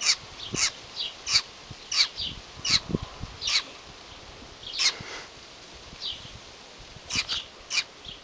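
Baby bird cheeping to beg for food: short, shrill, high calls repeated about once or twice a second, with a couple of brief pauses.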